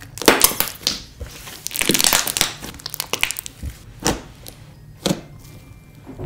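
Thick clear-glue slime squished and folded by hand, giving irregular pops and crackles. There is a dense run of crackling about two seconds in, then single sharp pops near four and five seconds.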